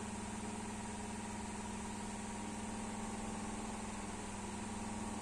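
Steady mechanical hum with a constant low drone, as of a motor running without change.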